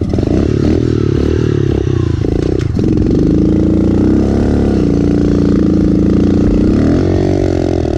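Small dirt bike engines running close by, the pitch wavering and rising and falling with the throttle.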